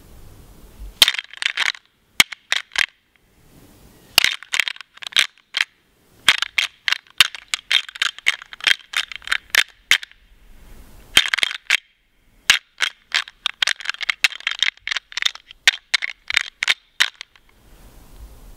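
Hand-held deer rattling call being worked in bursts of sharp, rapid clacking, several seconds at a time with short pauses between, imitating bucks sparring.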